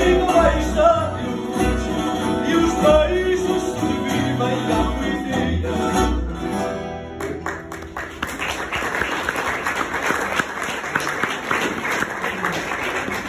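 Live fado: a sung line and plucked guitars play the song's final bars, then stop abruptly about seven seconds in. The audience breaks into applause that carries on to the end.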